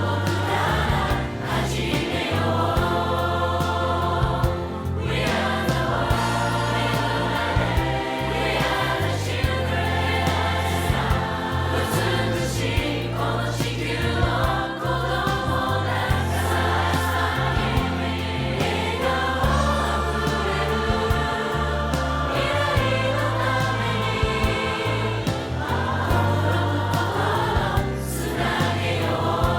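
Background music: a song with choir-like vocals over a steady bass line.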